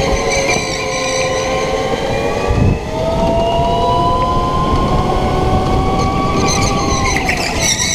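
Indoor rental go-kart driving at speed, heard onboard: a steady motor whine that climbs gently in pitch as the kart accelerates down the straight, then drops off near the end as it lifts for the corner, over constant tyre and chassis rumble. A low thump about two and a half seconds in.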